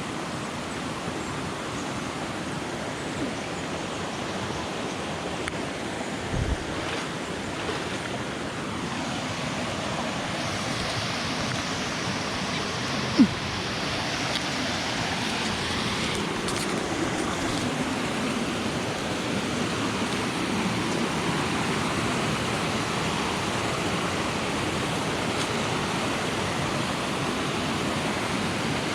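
Steady rushing of a cascading jungle waterfall. A couple of short knocks come through it, the sharpest about 13 seconds in.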